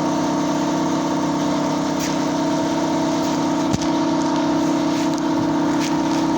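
A steady machine hum, like an engine or motor running at an even speed, with a few sharp metallic knocks from tool work, the loudest a little past halfway.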